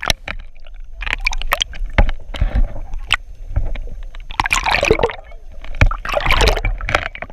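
Water splashing and sloshing, with many sharp knocks and clatters and two louder splashy bursts about four and a half and six seconds in.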